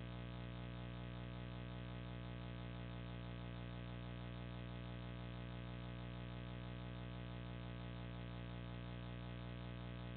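Steady electrical hum: a low buzz with a long row of overtones, unchanging throughout.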